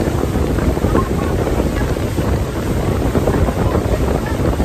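Speedboat running fast over open water: a steady, loud rush of wind buffeting the microphone, mixed with engine and water noise from the hull and wake.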